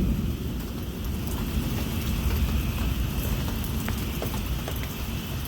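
Steady rain falling, with scattered faint ticks of drops striking close by.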